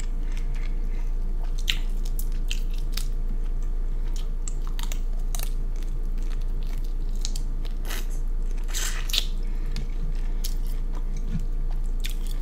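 Close-up chewing and wet lip-smacking of a person eating a sauce-coated colossal shrimp, with irregular short smacks throughout. A steady low hum runs underneath.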